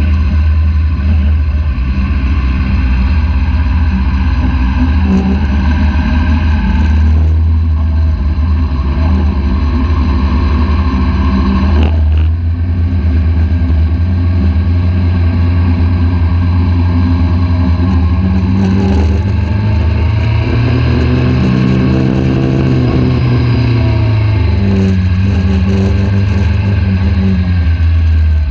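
Sport motorcycle engine running at low revs in first gear, heard close up from a microphone mounted on the bike, with a heavy steady low rumble. About twenty seconds in, the engine note rises and falls back once.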